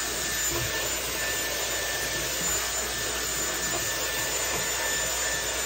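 Hot-air brush (hair dryer brush) running on its blower, a steady rushing of air with a faint high whine from its fan motor.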